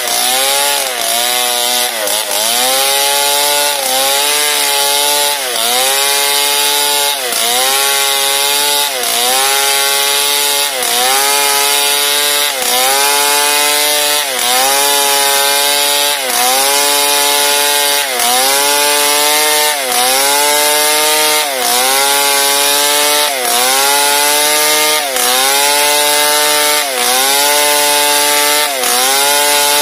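Stihl MS 382 two-stroke chainsaw running at full throttle while ripping a log lengthwise along the grain, its Oregon crosscut chain refiled into a ripping chain. The engine note sags and recovers in a steady rhythm about every two seconds as the bar is rocked and fed into the cut.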